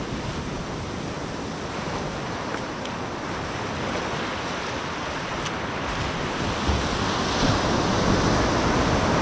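Surf breaking on a sandy beach, a steady rushing wash with some wind on the microphone; it grows louder over the last few seconds as a wave breaks close in.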